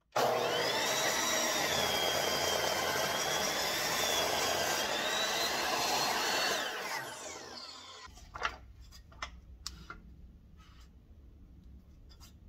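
Miter saw motor starting abruptly and running at full speed while the blade is lowered through a glued-up hardwood block, its whine wavering under the load of the cut. After about six and a half seconds the motor is released and the blade spins down with a falling whine, followed by a few light knocks and clicks.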